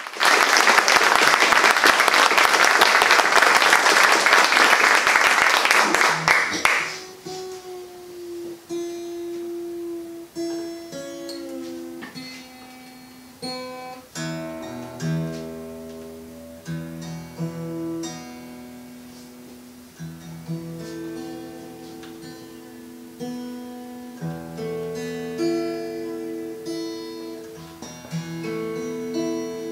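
Applause for about the first six seconds, then a solo acoustic guitar picking a slow introduction, single notes and chords left to ring.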